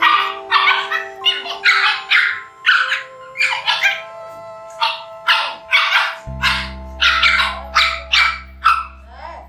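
Two Shiba Inu puppies barking and yipping at each other in rapid, sharp barks, about two a second, over background music.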